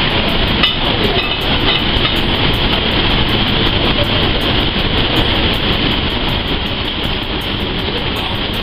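Steady loud roar of a commercial kitchen's gas range and overhead exhaust hood, with mushrooms sizzling in a sauté pan of hot oil.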